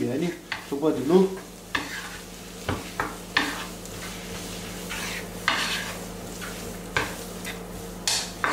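Spaghetti carbonara being stirred and tossed with a wooden spatula in a non-stick frying pan to coat the pasta with the egg. The pasta swishes and the spatula scrapes the pan in irregular strokes, over a low steady hum.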